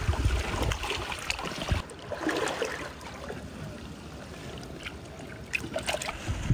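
Shallow seawater splashing and trickling as a rubber-gloved hand grabs in a tidal puddle, with wind rumbling on the microphone for the first two seconds. Then it goes quieter, with a few small clicks and rustles.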